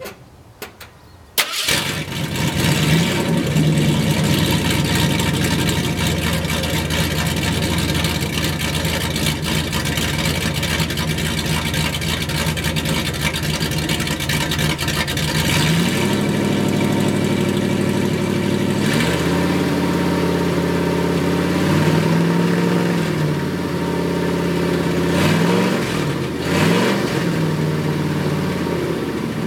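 Built Ford 460 big-block V8 in a 1979 F250, running through a straight pipe with the muffler off: it starts about a second and a half in and idles steadily. About halfway through the revs are raised and held in steps, then blipped several times and allowed to drop back.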